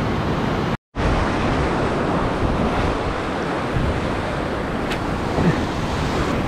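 Surf washing over rocks and sand, with wind buffeting the microphone. The sound drops out completely for a split second about a second in.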